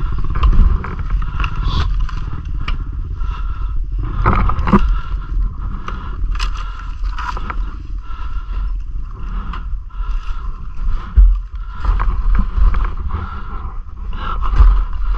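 Yamaha WR450 dirt bike's single-cylinder four-stroke engine running as the bike rides down a rocky trail. Frequent knocks and clatter come from the bike jolting over rocks and ruts.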